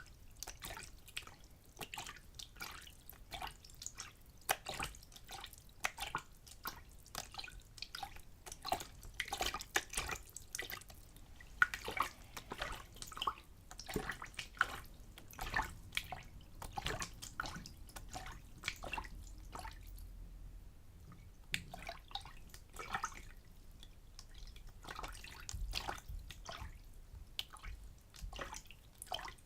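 A small amount of water splashed back and forth in a bin, in irregular splashes and drips, with a short pause about two-thirds of the way through.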